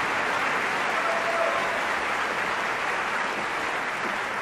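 Large theatre audience applauding steadily after an opera aria, with a brief single voice calling out from the crowd about a second and a half in.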